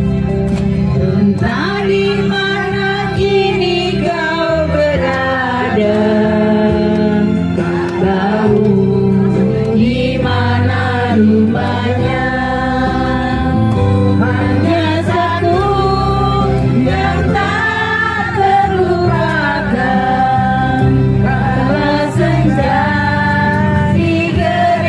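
Music: sung melody with long held, gliding notes over a steady instrumental accompaniment whose low chords change every second or two.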